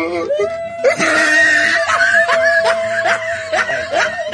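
Background music: one steady held tone under a shifting melody with short plucked or struck notes.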